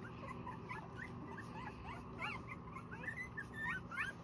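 Newborn Rottweiler puppies, about 12 days old, whimpering and squeaking: many short, high-pitched squeals that rise and fall in pitch, coming more often toward the end. Hungry puppies calling to be fed by their mother.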